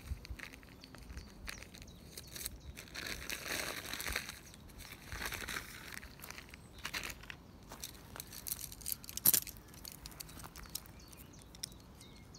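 Rustling of the nylon tent pole bag and packing as the tent poles are handled and unfolded, with short clicks of the shock-corded pole sections fitting together; one sharp click about three-quarters of the way in is the loudest.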